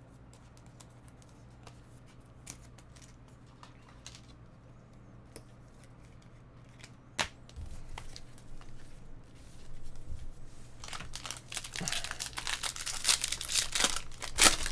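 A few faint clicks for about seven seconds, then a sharp click, then a trading-card pack's wrapper being torn open and crinkled, getting busier and louder over the last four seconds.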